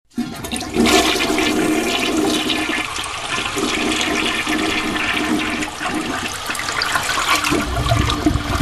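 Rushing water running steadily, with a faint steady tone through it, growing heavier and deeper near the end.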